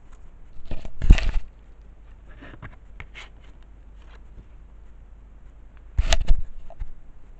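Handling noise as a plastic DVD case is moved about close to the microphone. A rustle and knock come about a second in, a few faint clicks follow, and another rustle and knock comes about six seconds in.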